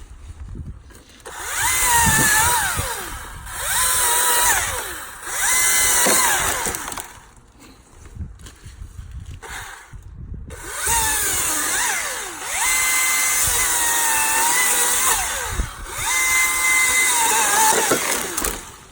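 Husqvarna battery-powered chainsaw cutting through a tree in about six bursts of a couple of seconds each. The electric motor and chain give a high whine that dips in pitch within each burst and drops away between cuts.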